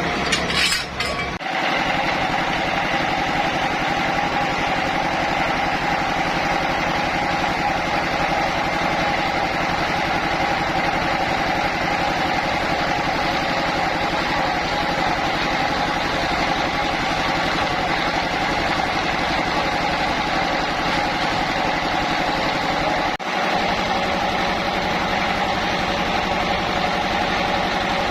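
Sawmill machinery running steadily: an even engine-like drone with a steady high hum, dipping briefly twice.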